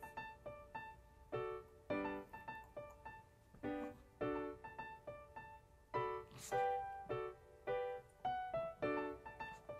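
Light background piano music: a bouncy melody of short notes and chords, several notes a second.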